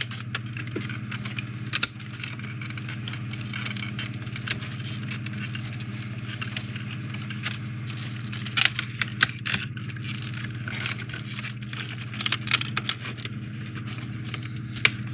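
Hands handling and fitting foam-board 3D puzzle pieces: rustling and scraping with scattered sharp clicks as the parts' tabs are pressed into their slots, the clicks bunching about nine seconds in and again near the end. A steady low hum runs underneath.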